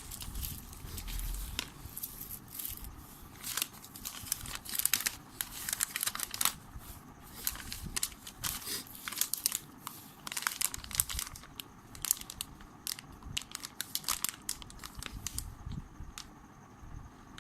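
Packaging crinkling and crackling in irregular bursts as it is handled and opened, dying down near the end.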